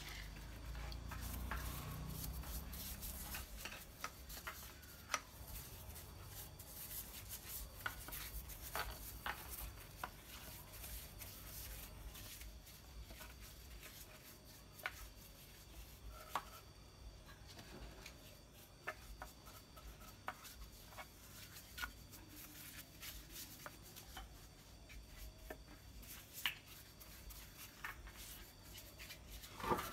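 Brush dabbing and scrubbing polish into the carving of a wooden statue: faint scattered taps and scratches at irregular intervals, with a low rumble in the first few seconds.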